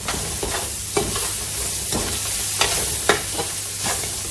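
Onion, garlic and spices sizzling in hot oil in a heavy aluminium pot, stirred with a spoon that scrapes and knocks against the pot about every half second.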